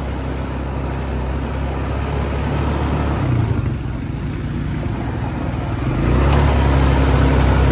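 A motor vehicle's engine running with a steady low rumble and road or wind noise, growing louder about six seconds in.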